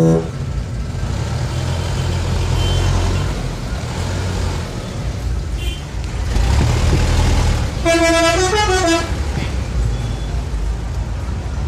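Bus engine running steadily, swelling twice. About eight seconds in, the bus's telolet horn plays a short melodic phrase of about a second, its pitch stepping down and back up. A horn note ends right at the start.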